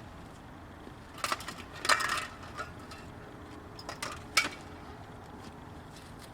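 A few short knocks and clatters of hard objects being handled: one about a second in, a longer clatter around two seconds, and a sharp knock just past four seconds, over a faint steady hiss.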